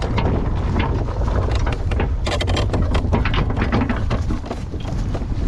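Wind rumbling on the microphone, with scattered knocks and rattles.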